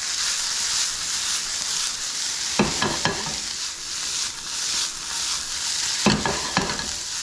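Spaetzle with bacon and cabbage sizzling in hot oil in a frying pan while being stirred, with two brief knocks about three and six seconds in.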